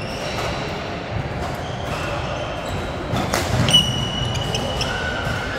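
Badminton rally: sneakers squeaking on the court floor and the shuttlecock struck by rackets, with the sharpest hits about three and a half seconds in.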